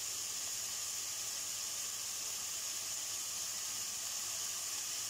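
Boneless chicken cubes and garlic sizzling in oil in a nonstick wok: a steady, even hiss.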